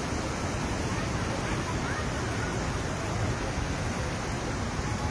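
Steady rushing noise of a river in full flow.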